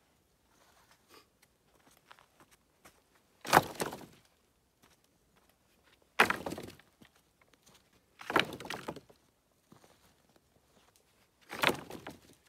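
Four sudden sharp knocks or cracks, two to three seconds apart, each trailing off within about half a second.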